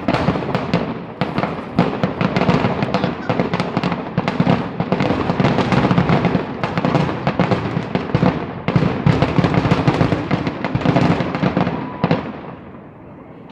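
Fireworks going off in a rapid barrage, many sharp bangs and crackles a second, that stops abruptly about twelve seconds in.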